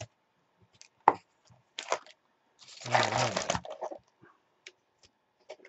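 Cardboard trading-card box and foil card packs being handled: a sharp tap about a second in, a short rustle, then a longer rustle around three seconds in as the packs are pulled from the box.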